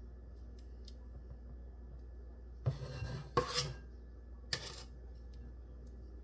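A small stainless-steel measuring cup scraping and clinking against a stainless-steel mixing bowl while scooping out thick cheesecake batter. There are three short scrapes a little under halfway through, after a few light ticks.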